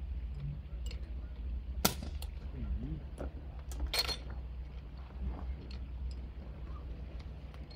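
Rescue gear being handled, with scattered small clicks and two louder sharp metallic clacks about two seconds apart, over a steady low hum.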